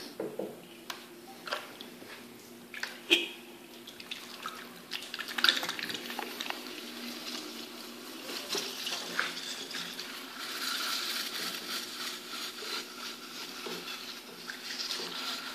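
Wet clay being worked by hand on a spinning electric potter's wheel, over the steady hum of the wheel motor. A few sharp wet slaps in the first five seconds give way to a continuous wet swishing of hands sliding on the turning clay, which grows louder about ten seconds in as the clay is pressed down and centered.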